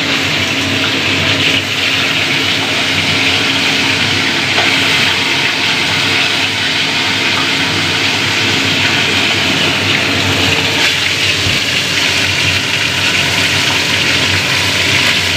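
Fish pieces frying in hot oil in a steel wok, a steady, even sizzle.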